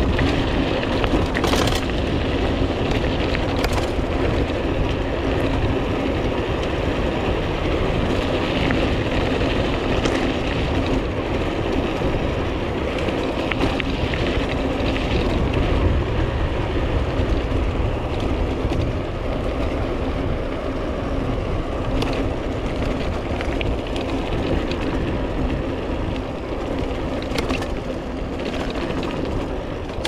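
Cronus Holts 610 mountain bike riding over rough ground, heard through a chest-mounted GoPro: steady wind rumble on the microphone mixed with tyre and frame rattle, and a few sharp clicks.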